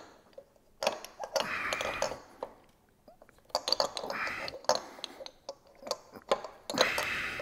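Hands working on the exposed top end of a Harley-Davidson Sportster engine: light metal clicks and taps mixed with rubbing and rustling, in three bursts about a second in, around four seconds and near the end, with a short quiet pause between.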